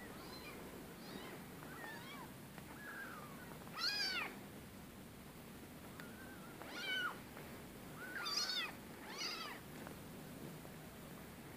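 Very young kittens mewing: a string of thin, high calls, each rising and then falling in pitch, faint at first and louder about four, seven, eight and a half and nine seconds in.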